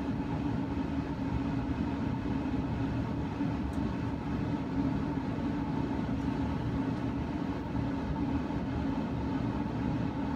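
Steady hum of a pellet smoker's fan running, a low drone with a fainter higher tone over it.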